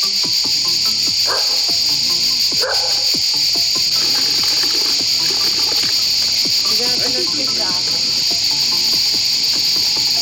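Cicadas chirring in chorus: a loud, steady, high-pitched buzz that holds without a break.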